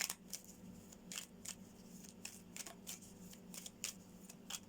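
Tarot cards being handled: a faint run of short, irregular flicks and taps as the cards are shuffled and laid out.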